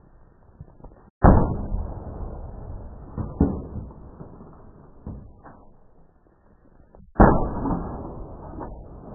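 Sledgehammer striking a DVD player's thin metal case on gravel: two heavy blows about six seconds apart, each followed by a long fading rattle of bent metal and debris, with a few smaller knocks between them.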